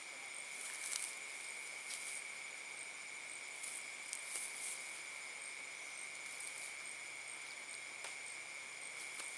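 Night insect chorus: a steady, even drone and a high, regular chirp about twice a second, with a few brief rustles.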